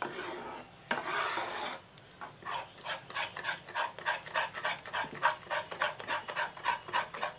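Metal spatula stirring and scraping thick gram-flour and sugar-syrup batter in a pan, in quick, even strokes about three a second.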